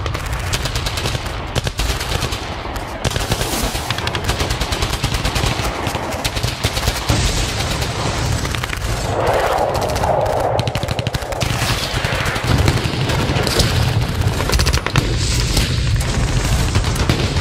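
Airsoft rifles firing in rapid full-auto bursts: a fast, dense clatter of shots in long strings.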